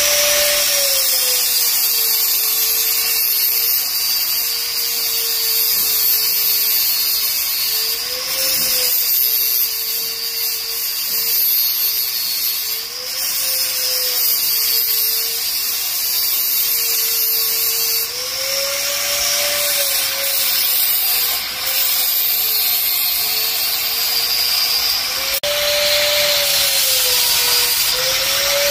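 Angle grinder running without a break, its abrasive disc grinding down a cattle hoof. The motor's whine sags in pitch while the disc bears on the hoof and picks back up each time the load comes off, over a steady hiss of grinding.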